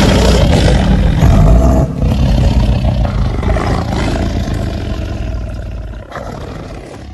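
Deep, rough creature roar sound effect for a fictional monster. It breaks briefly about two seconds in, then carries on and fades away over the last few seconds.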